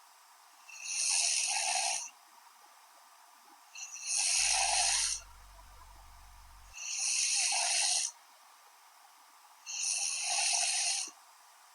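A woman snoring in her sleep: four snores, each about a second long and about three seconds apart.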